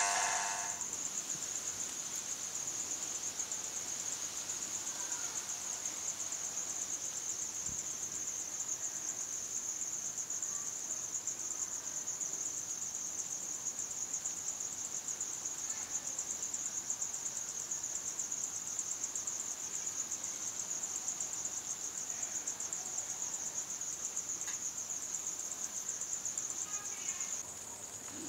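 Crickets trilling: a continuous high-pitched chorus with a fast, even pulse that never breaks, dropping slightly in loudness near the end.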